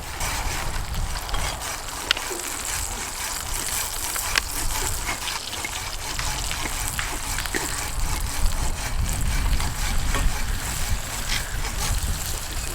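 Breakfast food sizzling in a frying pan over a campfire, a steady hiss dotted with small crackles and pops, with a low rumble underneath.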